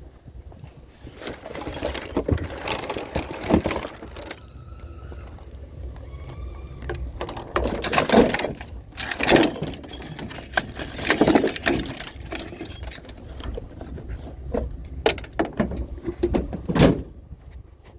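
Scrap being handled and loaded: irregular clattering, scraping and metallic bangs, the loudest near the end, over a vehicle engine idling.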